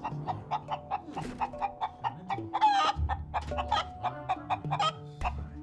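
A man clucking like a chicken, a rapid string of short clucks, over light background music.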